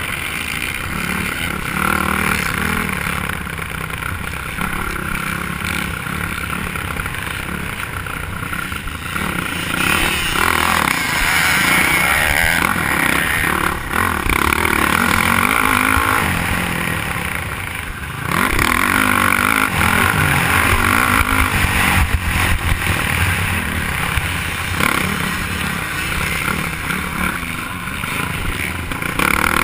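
Motocross dirt bike engine, heard up close, revving hard and easing off over and over as the bike accelerates down straights and backs off for corners and jumps. It grows louder about two-thirds of the way through.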